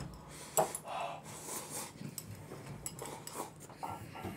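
A person eating noisily: slurping from a small porcelain bowl and chewing, with a few light clinks of a utensil against the bowl.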